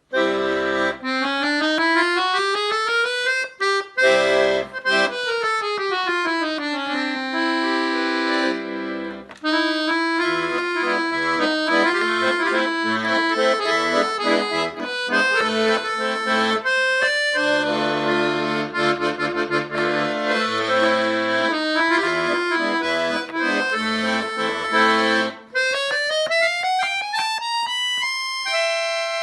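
Accordion playing a lively piece: quick descending runs on the treble side over a rhythmic bass-and-chord accompaniment, ending with a rising run into a held chord.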